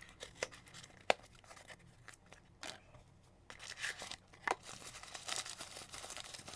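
Cardboard parcel being cut and torn open by hand with a blade, with a few sharp clicks. In the second half, plastic packaging crinkles and rustles as the contents are pulled out.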